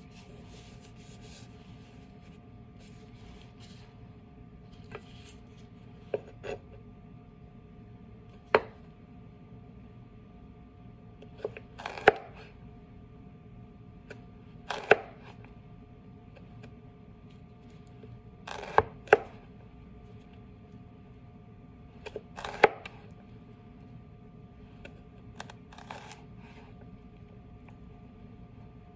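Chef's knife dicing carrot batonnets on a cutting board: sharp knocks of the blade striking the board, irregular and a few seconds apart, some in quick pairs, over a faint steady hum.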